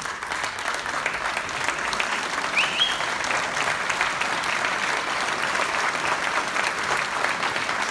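Audience applauding steadily, many hands clapping at once, with one short rising whistle about two and a half seconds in.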